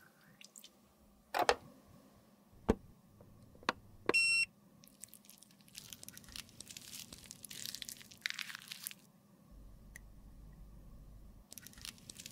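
Three sharp clicks of small tools being handled, a short electronic beep, then a spatula scraping and crumbling the surface of a red lipstick bullet in several scratchy bursts.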